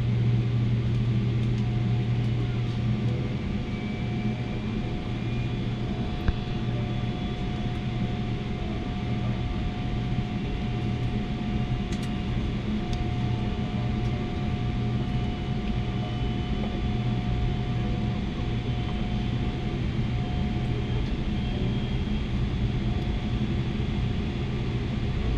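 Jet airliner cabin noise during taxi after landing: a steady low rumble from the engines at taxi power and the rolling aircraft, with a faint steady whine above it that fades out about three-quarters of the way through. There is one small click about six seconds in.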